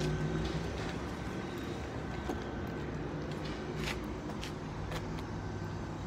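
Outdoor background noise with a steady low mechanical hum, like a nearby engine or machine running, and a few light clicks about four and five seconds in.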